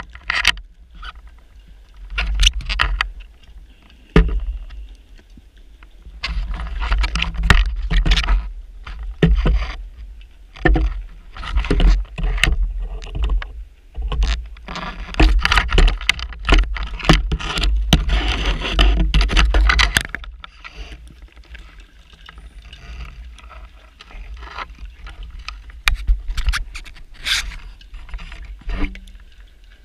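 Underwater bubbling and rushing from a diver's breathing gear, coming in irregular bursts of a second or more, with scattered clicks over a steady low rumble. The longest burst runs for about five seconds in the middle of the stretch.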